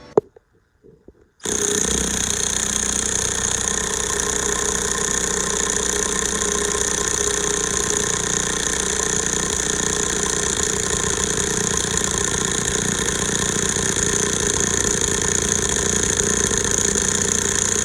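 Snap-on impact wrench hammering continuously on an axle bolt, starting about a second and a half in after a single click, running steadily for about sixteen seconds and cutting off sharply.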